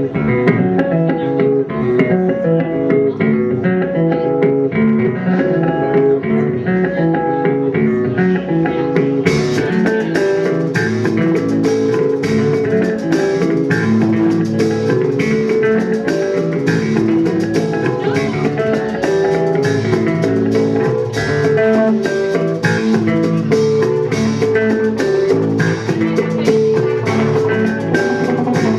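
Live rock trio playing an instrumental passage on electric guitar, bass guitar and drum kit, with picked guitar notes over the bass. About nine seconds in, the cymbals come in and the drums play fully.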